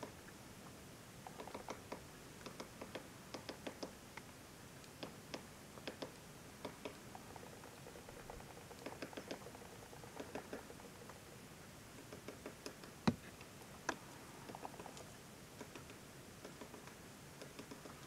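Faint, irregular soft clicks and ticks over a low hiss, with two sharper, louder clicks about thirteen and fourteen seconds in.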